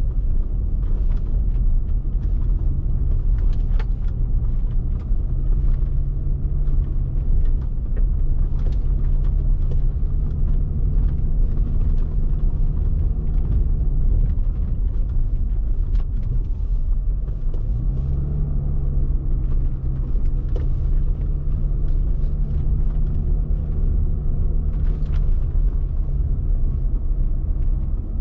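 A car driving, its engine running under a steady low rumble of road noise, the engine note stepping up a little about five seconds in and again about eighteen seconds in. Scattered short clicks and knocks run through it.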